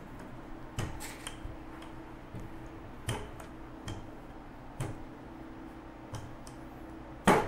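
Wooden rolling pins rolling pie dough on a flour-dusted stainless steel table, giving irregular sharp clicks and knocks against the metal, the loudest near the end.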